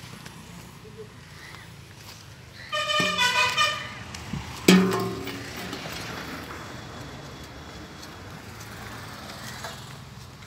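A vehicle horn tooting in a quick wavering pattern for about a second, then a louder, sudden blast about two seconds in that fades out.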